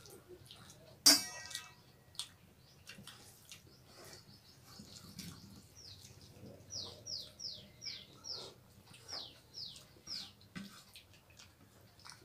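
A bird calls a run of about nine short chirps, each falling in pitch, in the second half. Earlier comes one sharp clink, the loudest sound, and throughout there are faint clicks of fingers mixing rice on steel plates.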